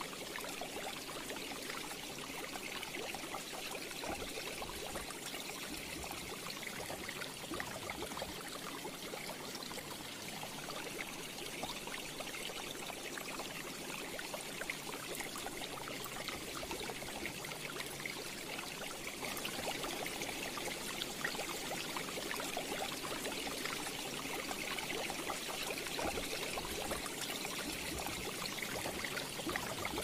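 Aquarium filter water splashing and trickling into the tank, a steady crackly bubbling that gets a little louder about two-thirds of the way through.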